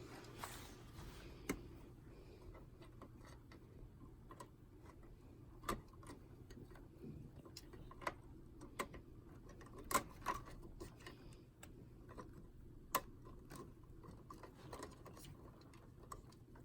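Sparse, irregular small clicks and taps of plastic cable connectors and drive parts being handled inside a PC case, over a faint steady low hum.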